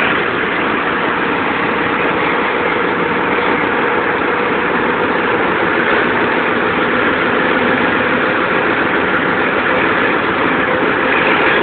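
Diesel locomotive running under power as the train accelerates, the throttle opened up to notch 8: a loud, steady engine and running noise, with a faint steady tone that fades out about halfway.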